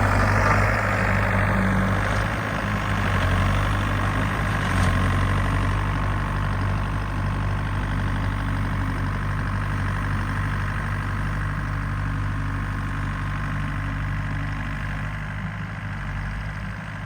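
Case TR270 tracked skid steer's diesel engine idling steadily, growing somewhat quieter over the last few seconds.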